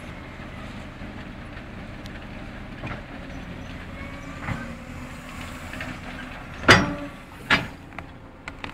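Cat 330D tracked excavator's six-cylinder diesel engine running steadily. Two loud knocks, less than a second apart, come near the end of the run.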